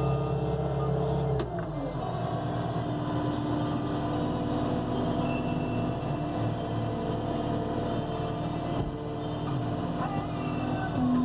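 Caterpillar 242D skid steer's diesel engine running at high revs, then dropping in pitch about a second and a half in as it throttles back to a lower, steady speed.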